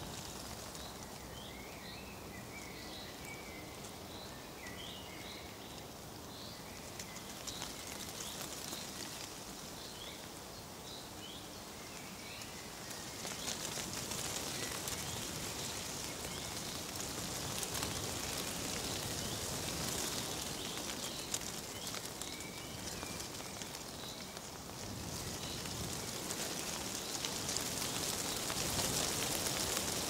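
Leaves rustling in a breeze, with small birds chirping through the first half. The rustling grows louder and hissier about halfway through.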